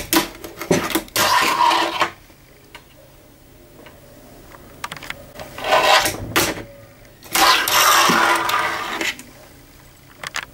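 Fingerboard rolling and grinding along a wooden fingerboard box, in three scraping runs of one to two seconds each, with a few sharp clacks of the board popping and landing between them.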